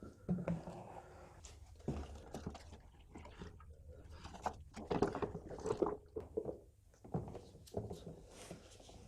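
Workshop sounds of parts and tools being handled: irregular knocks, clacks and scrapes, busiest about halfway through, over a low steady hum.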